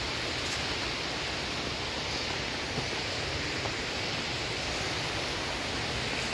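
Steady rushing of a fast-flowing mountain stream, an even hiss without breaks.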